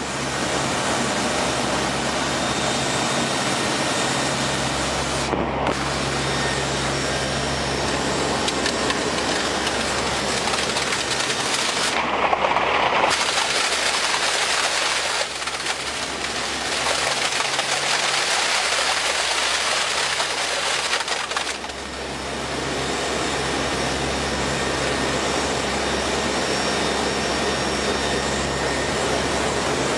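Steady drone of an aircraft in flight heard from inside the cockpit: engine noise with a low steady hum under a constant rush of air.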